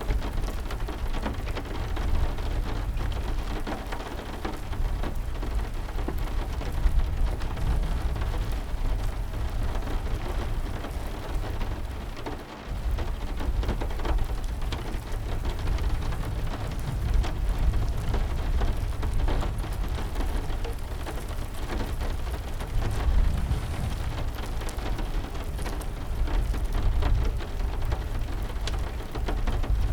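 Steady rain with a continuous deep rumble underneath and many small scattered ticks. The sound dips briefly about twelve seconds in.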